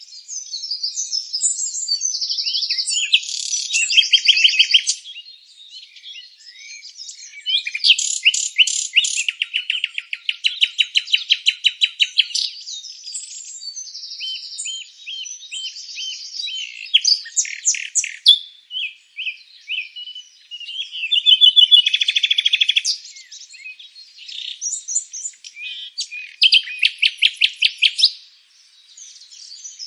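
Songbirds singing: high-pitched chirps and fast trills in phrases of a few seconds, with short lulls between them.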